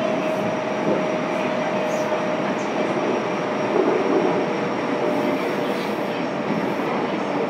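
Fukuoka City Subway 2000-series train with Hitachi GTO-VVVF drive running, heard from inside a passenger car: a steady rumble of wheels on rail with a faint steady whine running through it.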